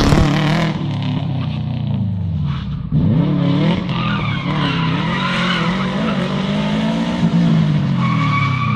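Subaru Impreza rally car's flat-four engine revving up and down repeatedly as the car is slid around cones, with tyres squealing on the asphalt. The engine drops off briefly about three seconds in, then comes straight back on.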